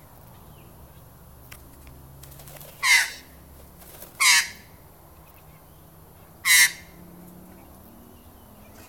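Australian magpie calling: three short, harsh calls a second or two apart, each falling in pitch.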